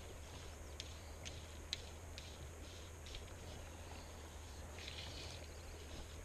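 Faint outdoor ambience beside a flowing creek, with a steady low rumble underneath and a scattering of small sharp clicks.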